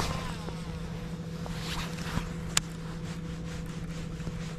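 Bow-mounted electric trolling motor running with a steady hum. A brief falling whirr at the start and a sharp click about two and a half seconds in.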